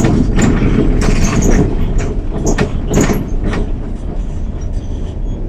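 Alstom Citadis 302 tram running, heard from the driver's cab: a steady low rumble with a series of irregular sharp clacks and knocks over the first three and a half seconds as the wheels cross the rail junctions, then a smoother run.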